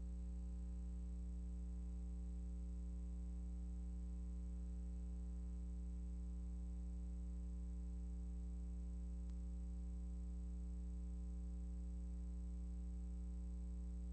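Steady low electrical hum with its overtones, and a thin high-pitched whine above it, unchanging.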